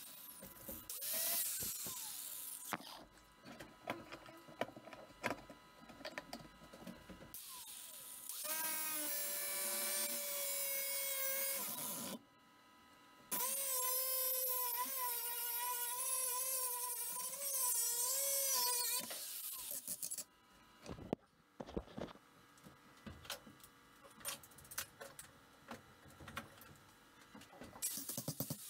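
Handheld angle grinder grinding steel. The motor whine wavers in pitch as the disc bites, in two long runs of about five seconds each, with a shorter run near the start. Scattered clicks and knocks fall between the runs.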